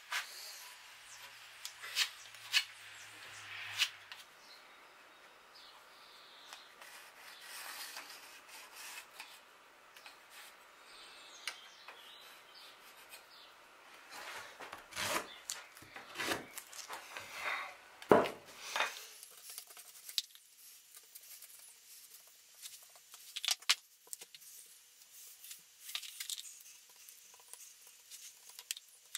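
Hand tools working timber: sandpaper rubbing on a softwood keel timber, with scattered clicks and knocks. Partway through comes a run of louder saw strokes cutting through a timber block.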